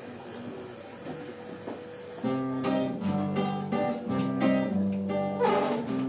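Acoustic guitar strummed, playing the opening chords of a song's introduction, starting about two seconds in after a quieter stretch with only a faint steady hum.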